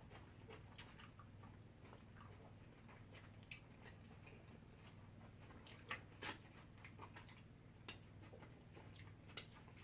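Faint eating sounds: quiet chewing with a few short sharp clicks, the loudest about six seconds in and again near the end.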